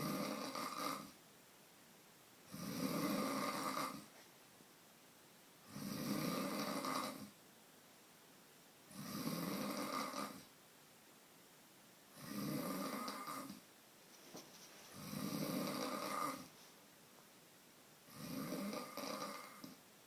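A person snoring loudly, one long, rasping snore roughly every three seconds with quiet gaps between.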